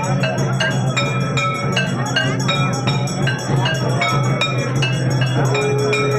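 Temple bells ringing quickly and evenly for an aarti, about three metallic strikes a second, each one ringing on.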